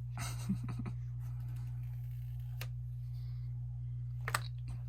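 Scattered handling clicks and rustles, a short cluster near the start and two sharp single clicks later, over a steady low hum.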